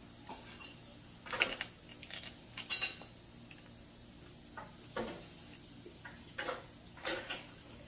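Dishes and cutlery clinking and knocking: a handful of short, separate light clinks spread over several seconds.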